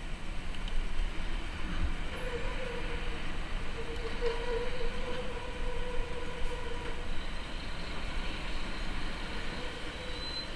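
Steady rumble and road noise of vehicles in traffic, heard from a moving vehicle, with a steady whine from about two to seven seconds in.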